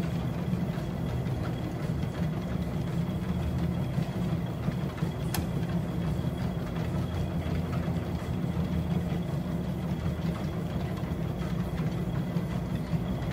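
Dog treadmills running steadily with a low motor hum and belt drone while dogs trot on them. A single sharp click about five seconds in.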